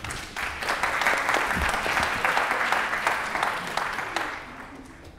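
Audience applauding: a dense patter of many hands clapping that swells about half a second in and dies away near the end.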